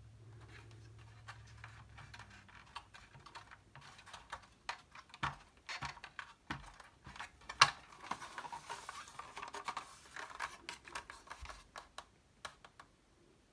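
Handling noise from a TRS-80 Model 1 keyboard and circuit board being pried off rubber spacers and lifted out of the plastic case: irregular small clicks and knocks of keys and plastic, growing busier from about four seconds in. The sharpest is a single snap about halfway, followed briefly by a scraping rub.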